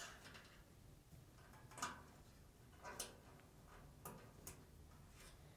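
Near silence with a handful of faint, sharp plastic clicks and taps from a dryer's wiring harness connector and wire retainers being pushed into place.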